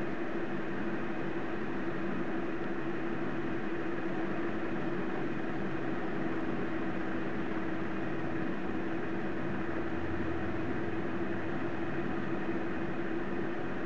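Steady background hum and hiss with one constant low tone, unchanging, with no clicks or voices.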